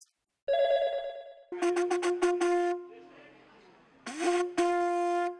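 Conch shell horn blown: one higher note first, then a run of about five short blasts on a lower note, and near the end one long blast that slides up into its pitch.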